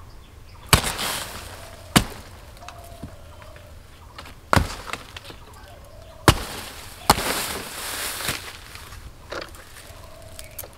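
A sickle chopping through the thick stalk of a banana bunch: five sharp blows, one to two and a half seconds apart, some followed by a short rustle.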